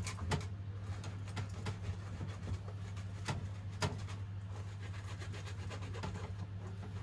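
Irregular clicks and knocks of a utensil against a metal strainer and bowl as boiled azuki beans are mashed; the beans are still too firm to crush. A steady low hum runs underneath.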